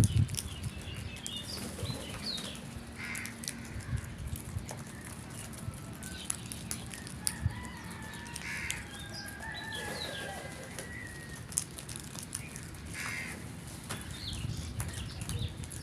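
Birds calling and chirping on and off, short high calls scattered throughout, with a few held whistled notes around the middle and some sharp clicks.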